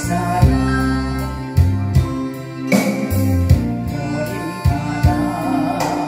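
A woman singing a Korean gospel praise song into a microphone over a backing track with drums, bass and sustained chords.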